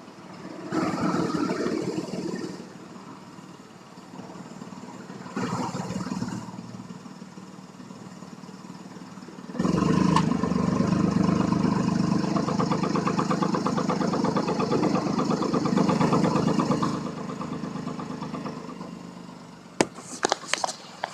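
Nissan Moco kei car's engine idling steadily, with the muffler's rattle at idle that the video sets out to cure by strapping the muffler up with a cable tie. It is louder and more rattly from about ten seconds in until about seventeen seconds, with a few sharp clicks near the end.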